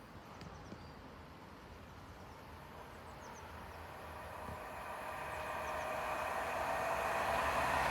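A train approaching, its running noise growing steadily louder through the second half. A few faint bird chirps sound about three seconds in.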